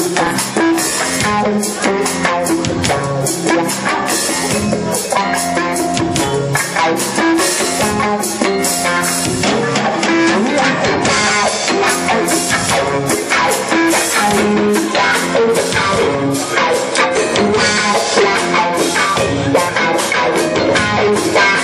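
Live rock band playing: electric guitar over a drum kit keeping a steady beat.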